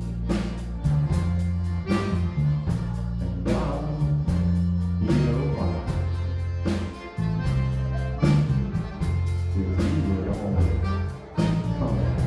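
Live Cajun band music: electric bass, accordion, fiddle and drum kit playing together over a steady beat, with the bass notes prominent.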